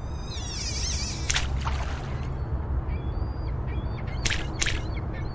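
Intro sound effects: bird calls, warbling high chirps at first and then short whistled notes, over a steady low rumble. A few short splashy bursts come about a second in and again past four seconds, as a fishing float drops onto the water.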